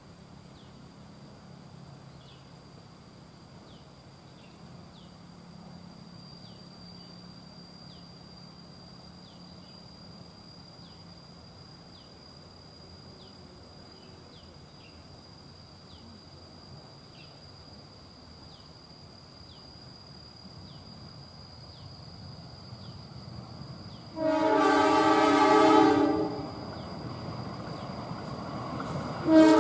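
A steady high insect drone plays quietly while the rumble of a KAI CC 203 diesel-electric locomotive builds as it comes out of a tunnel. Its multi-tone horn sounds twice: a blast of about two seconds some 24 seconds in, and a second blast starting just before the end.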